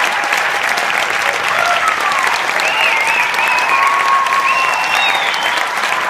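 Audience applauding steadily after a concert band performance, a dense even clapping, with a few high-pitched calls from the crowd rising over it in the middle.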